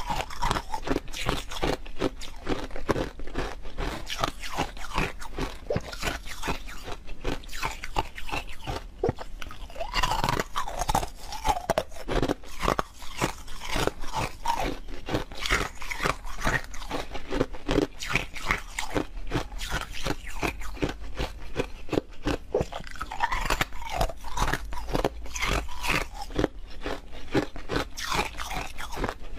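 Frozen milk ice being chewed: rapid, continuous crunching and cracking, many sharp crunches a second.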